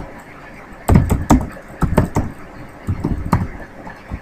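Typing on a computer keyboard: about ten sharp, irregular keystroke clicks, some in quick pairs, with short pauses between.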